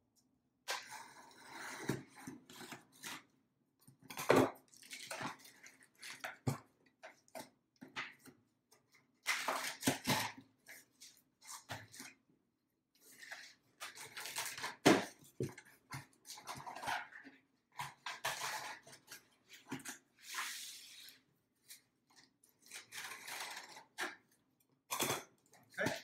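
Scissors slitting the packing tape along the seams of a cardboard box, in irregular bursts of scraping and ripping with occasional knocks on the cardboard. Near the end the box is handled and its flaps are pulled.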